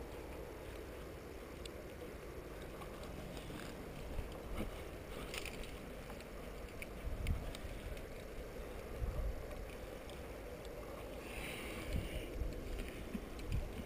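Faint, muffled scuffs and light clicks of a climber moving up a rock face, with occasional soft knocks, over a steady low rumble.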